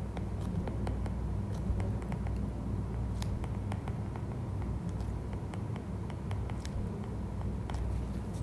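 Irregular light clicks and taps of a stylus tip on a tablet's glass screen during handwriting, over a steady low hum.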